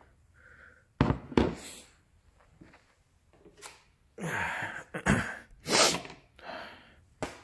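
Knocks, scrapes and clicks of plastic parts being handled in a car's engine bay as the oil is topped up: a sharp knock about a second in, a few rustling scrapes, and a click near the end as a plastic funnel is set into the oil filler neck.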